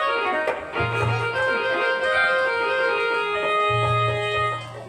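Organ-like keyboard playing a slow melody of held notes, with a low bass note sounding twice underneath.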